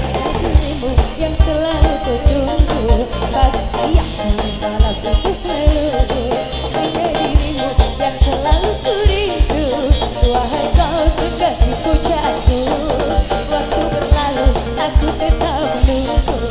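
Live band music with amplified vocals: a woman sings over a drum kit, electric bass and guitars, with a steady bass-drum beat.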